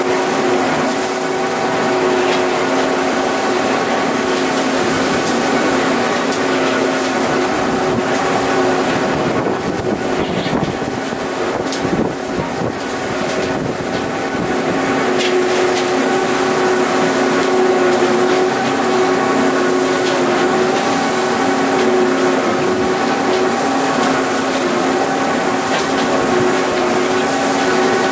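Tractor engine running steadily, driving a Kuhn Knight VT180 vertical feed mixer through its 1000 rpm PTO, a constant mechanical drone with a few steady tones. The level dips briefly about halfway through.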